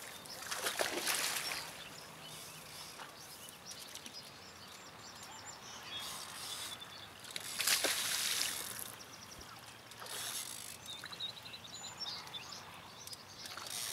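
Outdoor lakeside ambience broken by three short noisy surges, about a second in, near eight seconds and near ten seconds, typical of a hooked carp splashing at the surface as it is played close to the bank. Faint bird chirps in between.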